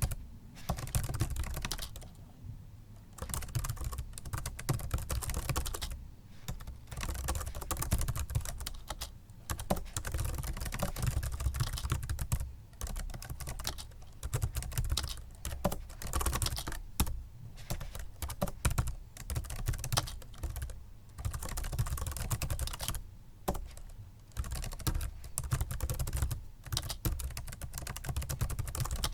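Typing on a Microsoft Sculpt Ergonomic membrane keyboard: quick runs of soft key presses, broken now and then by pauses of about a second.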